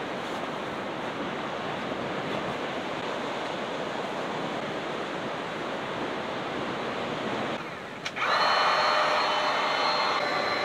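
Steady rushing noise, then about eight seconds in, after a brief dip, an electric air pump starts up for inflating an air mattress: a louder, steady motor hum with a constant whine.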